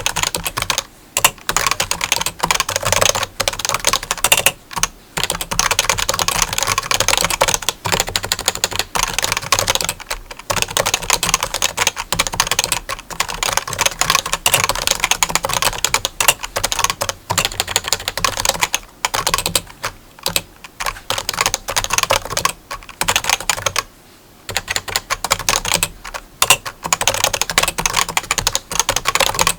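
Rapid, dense clicking in long runs, broken by brief pauses every few seconds.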